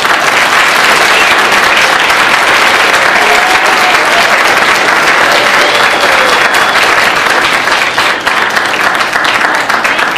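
Audience applauding: loud, dense clapping that starts suddenly and thins toward the end into more separate claps.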